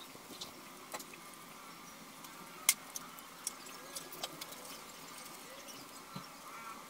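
A few faint, scattered clicks and taps from a steel window grill and a sheet of cardboard being handled, the sharpest click about two and a half seconds in. A faint steady hum lies underneath.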